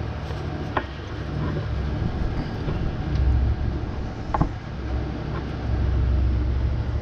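A steady low rumble, with two sharp clicks, one about a second in and one about four seconds in, as a throttle cable is worked loose on a small engine.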